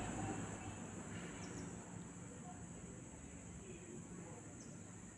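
Quiet room tone: a faint steady hiss and low hum, with a few brief faint high chirps.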